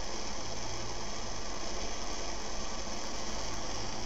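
Primus No.71 petrol pressure stove burning, its vaporising burner giving a steady, even hiss.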